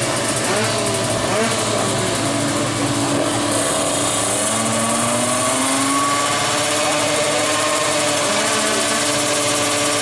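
Several two-stroke drag-bike engines running at once, their pitches rising and falling as they are revved.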